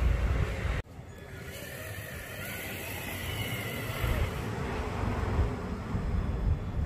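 Electric RC rock crawler driving, its motor and gears whining faintly over a steady low rumble. The sound breaks off sharply about a second in, then carries on.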